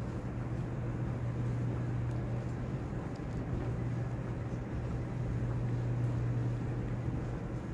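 Steady low hum and rumble of a large cathedral interior's room tone, with an even wash of background noise; the hum drops away near the end.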